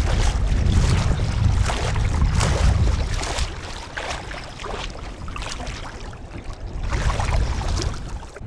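Wind buffeting the microphone in a steady low rumble, with repeated splashing steps of someone wading through shallow water.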